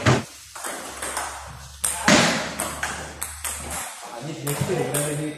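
Table tennis balls clicking off paddles and table tops during rallies, a quick irregular series of sharp clicks.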